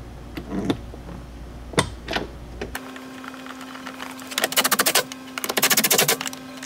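Cordless power driver running in two short bursts, each with a rapid ticking, about four and five and a half seconds in, as it drives the Jeep grab handle's 10 mm bolts back in. Earlier come a few sharp clicks of plastic trim being handled.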